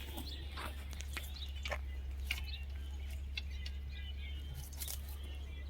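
Outdoor farm ambience: faint, scattered bird chirps and a few small clicks and knocks over a steady low hum.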